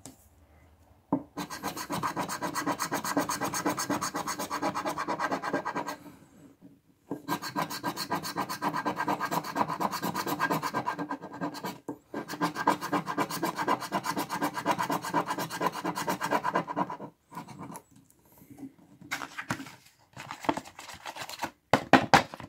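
A coin scraping the silver coating off an FDJ 'Millionnaire' paper scratch ticket in quick back-and-forth strokes. The scraping comes in three long runs with short breaks between, then turns into a few scattered scrapes and clicks near the end.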